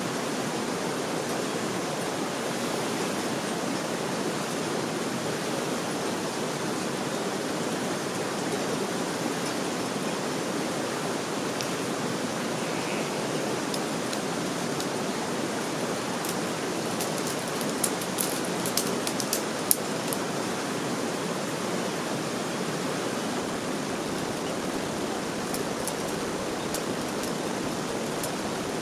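Steady rush of flowing water, like a mountain stream or runoff. A few sharp clicks come on top of it about two-thirds of the way in and again near the end.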